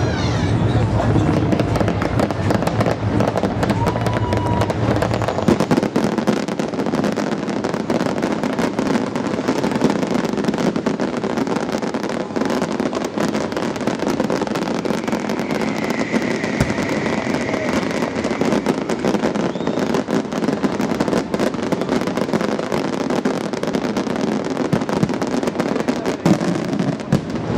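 Aerial fireworks display: a dense, continuous crackle of bursting shells and crackling stars with scattered bangs, deeper booms in the first five seconds or so.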